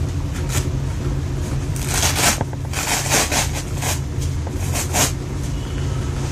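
Hook-and-loop (Velcro) fastening of a slimming belt being peeled open in a few ripping pulls between about two and five seconds in, as the belt is taken off. A steady low hum runs underneath.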